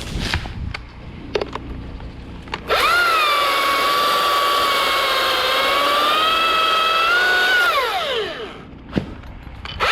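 Husqvarna T540iXP battery chainsaw: a few knocks, then about three seconds in the electric motor whines up to speed, its pitch sagging and recovering under load. It spins down with a falling whine, and is triggered again right at the end.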